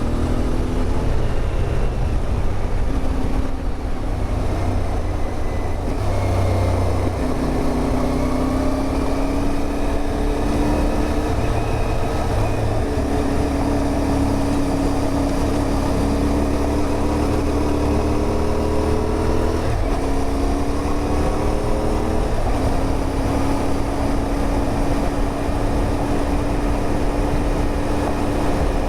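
CFMOTO 450MT's parallel-twin engine running under way: its note climbs and drops back several times as it changes gear, over steady low wind rumble on the microphone.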